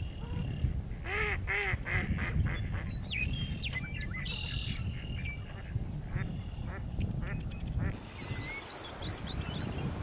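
A flock of Wilson's phalaropes calling on the water: a run of short calls in the first few seconds, then thinner, higher chirps near the end, over a steady low rumble.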